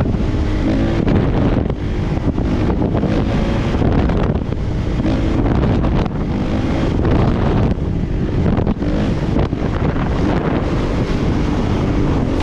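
Kawasaki KX450 dirt bike's single-cylinder four-stroke engine running under throttle while riding, its pitch rising and falling, with heavy wind noise on the microphone.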